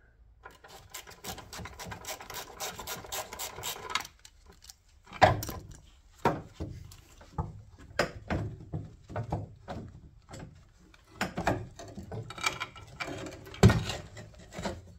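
Rusted bolt grinding as it is turned out with a breaker bar and socket, a steady rasp for about four seconds. Then irregular metal knocks and clunks as the Mini's rear shock absorber is worked loose from its mount, the loudest about five seconds in and near the end.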